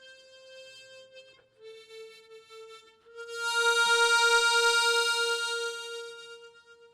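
Solo harmonica playing a slow hymn melody: two sustained notes, then a long held note from about three seconds in that swells loud with a pulsing waver and fades away near the end.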